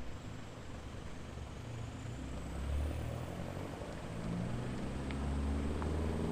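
An engine running steadily, a low hum that grows somewhat louder in the second half.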